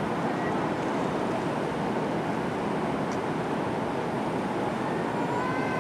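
Steady, echoing wash of noise inside a large indoor stadium: the murmur of the audience and the arena's room sound.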